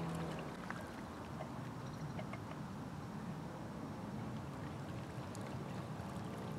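Vintage Kyosho Marine Streamliner radio-controlled model boat running out on a river, heard as a steady wash of motor and water noise with a few faint ticks.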